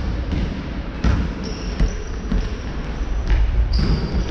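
A basketball bouncing on a hardwood gym floor in a large sports hall, a few separate thuds, with short high squeaks from sneakers on the court around the middle and near the end.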